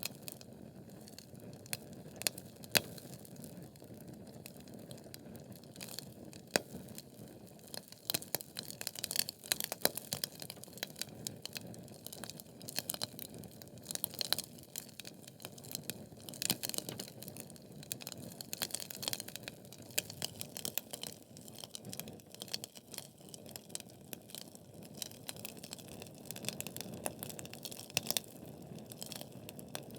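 Wood fire burning in a fireplace: a steady low rush of flames with frequent sharp crackles and pops from the burning logs, the crackling growing busier about a third of the way in.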